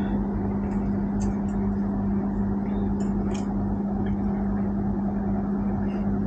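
Steady low machine hum with one constant tone, unchanged throughout, with a few faint light clicks about a second in and around three seconds in.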